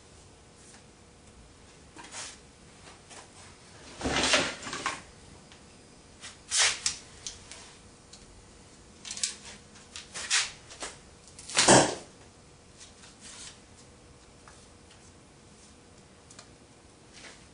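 Scattered knocks and short clattering rattles of a bow and wooden arrows being handled at a workbench, with the loudest knock about twelve seconds in.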